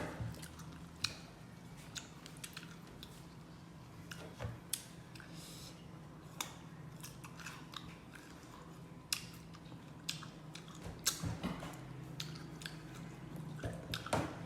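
Chewing and biting of fruit close to the microphone: scattered crisp crunches and mouth clicks, bunching together about eleven seconds in and again near the end, over a steady low hum.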